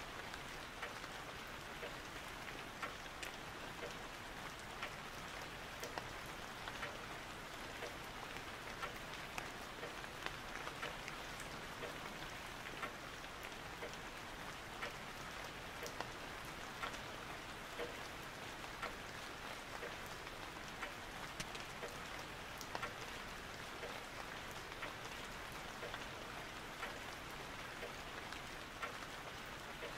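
Steady soft hiss dotted with many small, irregular ticks, like rain pattering on a surface.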